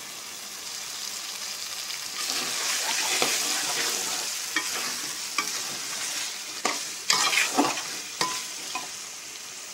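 Beef liver and jackfruit seeds frying in spiced masala in a pot, sizzling, while a metal spoon stirs through them, scraping and knocking against the pot. The sizzle swells about two seconds in, and the spoon's scrapes and knocks come loudest near the end.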